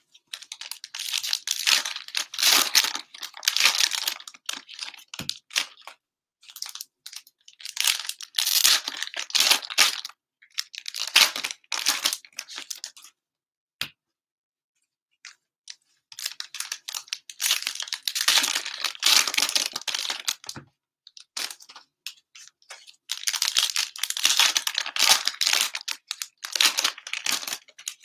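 Plastic cello wrappers of Panini Mosaic football card packs being torn open and crinkled by hand, in several bursts of a few seconds with short pauses between.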